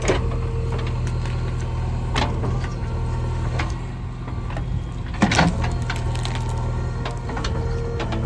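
A JCB 3DX backhoe loader's diesel engine running steadily under work, with sharp knocks about two seconds in and a louder one about five seconds in.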